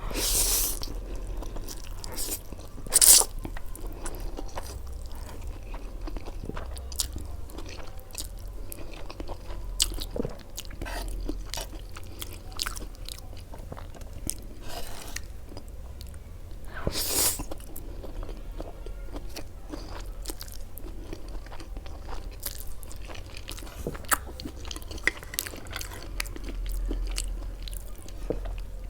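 Close-miked eating: biting and chewing with crisp, crunchy clicks and wet mouth sounds, and a few louder bites, one about three seconds in and another midway through.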